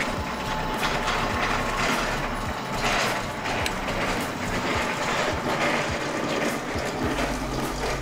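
Fuji Paudal Dome Gran twin-screw extrusion granulator running empty, its feed screws turning in the open hopper with a steady mechanical clatter and irregular clicks.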